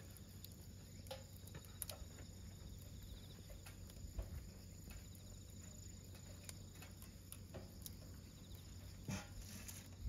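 Wood fire burning in a YOLER stainless-steel fire pit: faint, sparse pops and crackles of the burning firewood every second or two over a low steady background.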